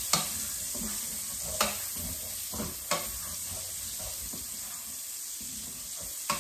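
Shallot sizzling in hot rendered chicken fat in a stainless steel sauté pan as it is tossed with tongs. The tongs clack against the pan a few times, once sharply just after the start.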